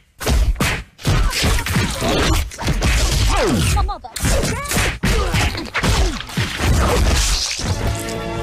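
Foley sound effects made from vegetables close to a microphone: a cucumber whacked, celery stalks snapped and twisted, and a tomato crushed in a fist, giving a rapid string of whacks, cracks, crunches and squelches like blows and breaking bones. Music comes in right at the end.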